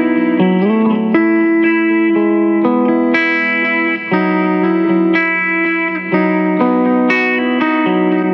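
Recorded clean electric guitar played back: ringing chords and picked notes, a new chord or note struck about once a second. It is a microphone-test recording of a guitar amp.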